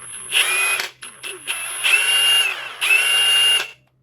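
Hazet HAZET 9212 cordless half-inch impact wrench run three times in forward on speed setting 2, the motor whine rising as the trigger is pulled and then holding steady before stopping.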